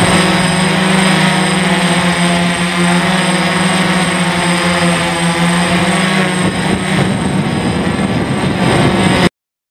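DJI F550 hexacopter's motors and propellers buzzing steadily in flight, heard close up from a camera mounted on the aircraft's landing gear. The buzz wavers a little past six seconds and cuts off suddenly near the end.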